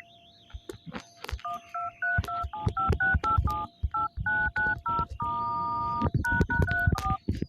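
Sony Xperia L4's phone keypad playing dial tones: a quick run of short two-tone beeps as keys are pressed one after another, with one key held for about a second near the middle. Low knocks and taps from handling the phone sound under the beeps.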